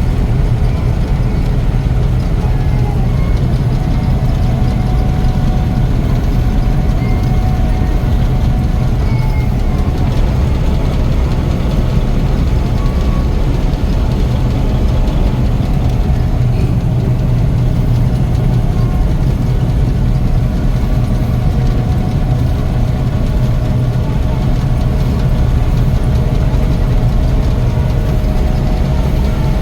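Heavy harvest machinery engine running steadily, a constant low drone with a faint steady whine above it.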